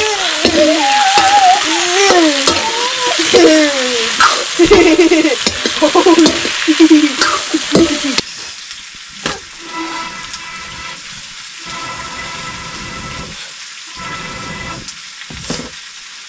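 Food frying and sizzling in a pan while it is stirred. Over the first half a voice croons without words, its pitch sliding up and down. It then stops, leaving the quieter sizzle.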